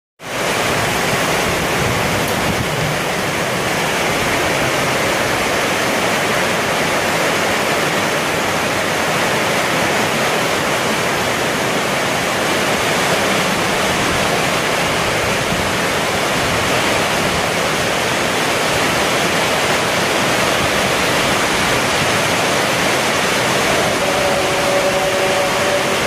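Heavy rain falling on a bare corrugated galvalume (aluminium-zinc coated steel) roof, heard from underneath: a dense, steady hiss of drops on the metal sheets, loud because no ceiling lining damps it.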